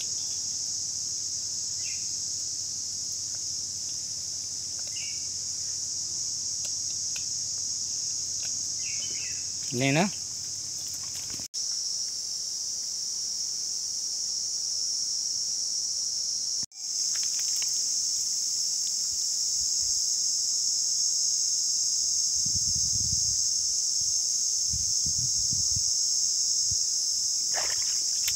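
Steady high-pitched insect chorus of the mangrove forest. A short rising call sounds about ten seconds in, and a few dull low thumps come near the end.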